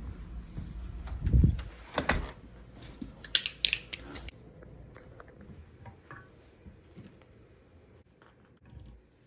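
Irregular knocks and clicks of objects being handled. A dull thump comes about a second and a half in, with sharper strikes near two and three and a half seconds, then only faint scattered ticks.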